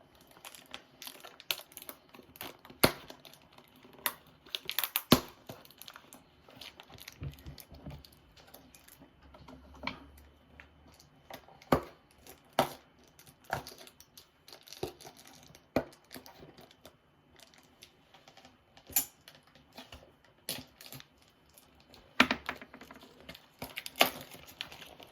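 A sealed box of trading-card packs being torn and pulled open by hand: irregular tearing and crinkling of cardboard and wrapping, with scattered sharp snaps.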